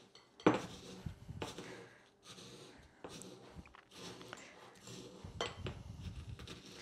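Pestle knocking and grinding in a stone mortar: irregular taps and scrapes of stone on stone, with a sharp knock about half a second in.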